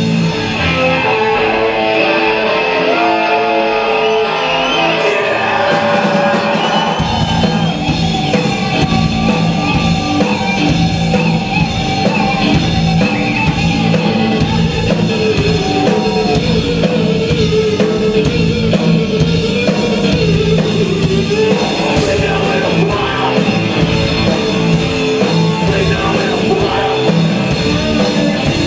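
Live rock band playing loud in an instrumental passage: for the first several seconds only the melodic upper parts play with no bass or kick drum, then the full band with drums and bass comes in about seven seconds in on a steady, driving beat.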